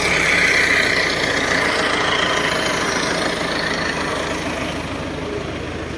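Tractor diesel engine running steadily at idle, gradually getting quieter.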